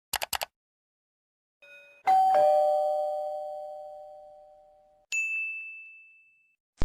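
Two-note ding-dong doorbell chime, a higher note then a lower one, each ringing out and fading over about three seconds, after a few quick clicks. About five seconds in comes a single higher-pitched ding that fades away.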